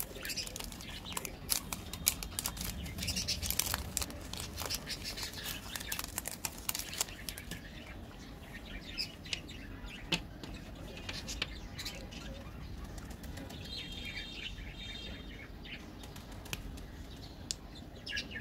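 Cadbury Dairy Milk chocolate bar's plastic wrapper crinkling and crackling as it is torn open and peeled back, dense at first and sparser later, with occasional sharp clicks as the chocolate squares are handled and broken.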